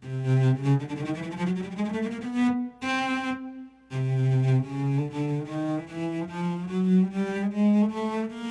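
Keyboard playing a sampled solo cello sound with reverb, practised as one bow stroke per note. A low note slides upward, two short breaks follow, then separate bowed notes climb step by step.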